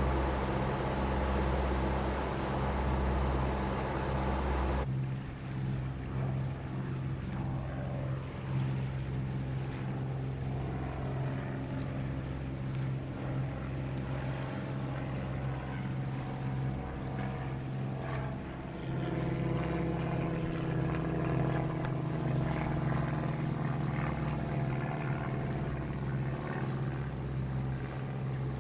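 Twin diesel engines of a Leopard 45 sailing catamaran running steadily under way, a steady low drone with a hiss of wind and water over it. About five seconds in the sound changes abruptly and the hiss largely drops away, leaving the engine drone.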